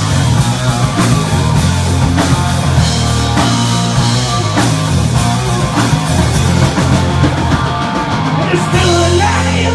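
Live hard-rock band playing loud: distorted electric guitars, bass and a drum kit in an instrumental passage with no singing.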